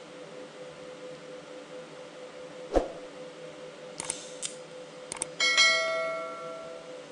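Sound effects of an on-screen subscribe-button animation: a few mouse clicks, then a bell ding that rings out and fades over about a second and a half. A single sharp knock comes a little before the clicks.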